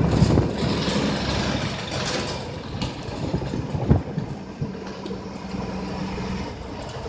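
Bus diesel engine running as it climbs a hill road, heard from inside with rumbling road and wind noise that gradually grows quieter. A steady low engine hum settles in during the second half, and there is a single thump about four seconds in.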